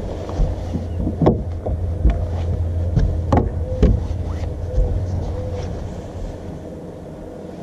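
Knocks and thumps on a bass boat's carpeted front deck as an angler shifts his feet and picks up a landing net, over a steady low rumble. The knocks come in the first four seconds, and the sound eases off towards the end.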